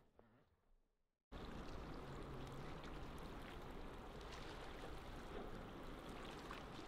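Near silence for about a second, then a steady, faint wash of sea ambience starts suddenly and runs on evenly.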